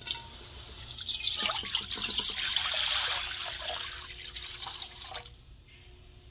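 Water poured into an empty metal wok, splashing and pattering against the pan. It builds to its loudest midway and stops about five seconds in.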